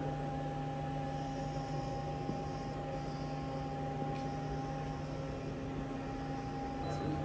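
Steady machine hum: several fixed tones over an even hiss, unchanging throughout.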